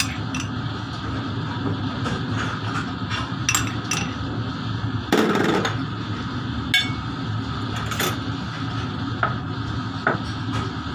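Clinks and knocks of a spoon and porcelain dishes on a stainless-steel kitchen counter while a stuffing is mixed, over a steady background hum, with one heavier knock about five seconds in.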